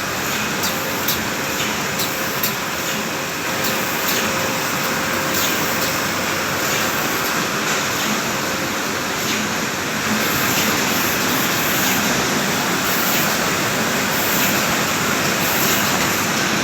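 JB-800A full-automatic spot UV screen printing machine running: steady mechanical noise with a faint hum. Light clicks come about twice a second in the first few seconds, and the noise grows a little louder about ten seconds in.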